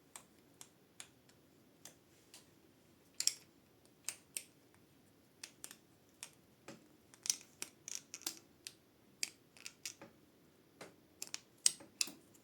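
Irregular small clicks and taps of small parts being handled and pressed into place as a 3D-printed derailleur cable connector is fitted, sparse at first and more frequent in the second half.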